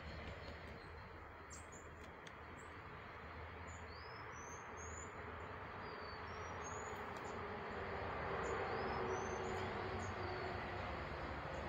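Outdoor garden ambience: a steady, faint background hiss with several short, high, upward-gliding bird chirps scattered through it.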